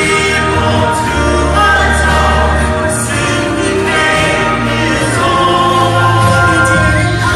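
Choir singing a Christian song with instrumental accompaniment over sustained bass notes.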